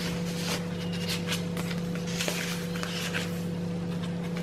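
Paper rustling and brushing as hands handle tags and turn the thick pages of a handmade junk journal, in short irregular scrapes, over a steady low electrical hum.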